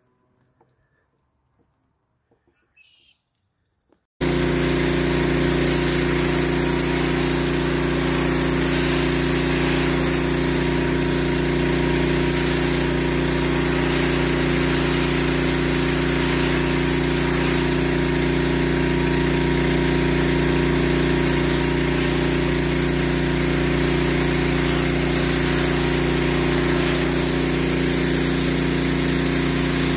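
Near silence for about four seconds, then a Husqvarna PW3200 gas pressure washer comes in suddenly and runs steadily. Its engine hums under the loud hiss of the high-pressure spray rinsing soap off a fiberglass boat hull.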